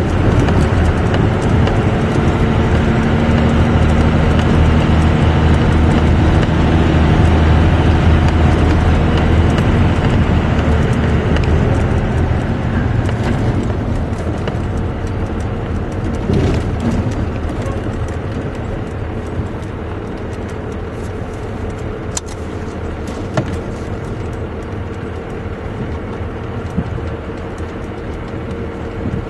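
12-valve Cummins 5.9 L inline-six diesel in a Dodge 2500 pickup running under load, heard from inside the cab while towing a heavy trailer. About halfway through the engine eases off and gets quieter, leaving a steady whine and a few light ticks.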